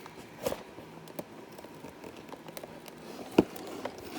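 Cardboard box being worked at by hand to get through its sealing tape: scattered small scrapes and clicks, with one sharp knock a little over three seconds in.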